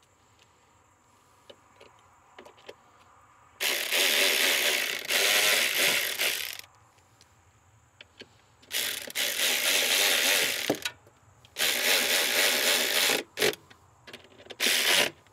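Cordless electric ratchet running in several bursts of one to three seconds, driving bolts during reassembly of an engine's intake, with small clicks of the socket and tool handling between runs.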